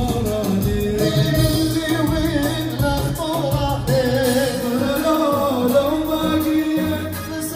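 Music: a song with a singer's wavering, ornamented voice over instrumental backing with steady bass notes.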